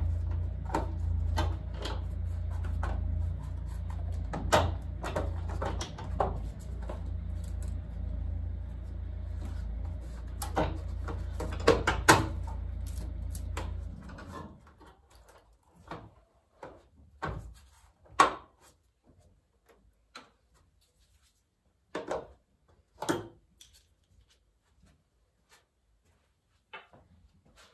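Hand tools and loose metal parts clicking and knocking as a car engine is taken apart, many knocks at first over a low steady hum that stops about halfway through. After that come isolated clicks and clanks with quiet between them.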